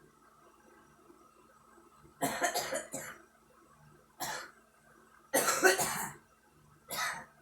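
A young woman coughing while smoking: a fit of quick coughs about two seconds in, a single cough, a second fit, then one more cough near the end.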